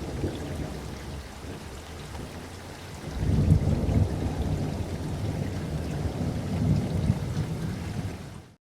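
Low rumbling noise, growing louder about three seconds in and fading out near the end.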